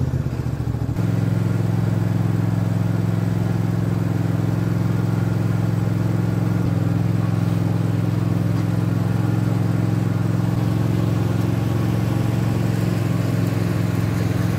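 Toro TimeCutter zero-turn mower's 22.5-horsepower Toro engine running as the mower is driven. It grows louder about a second in, then holds a steady speed.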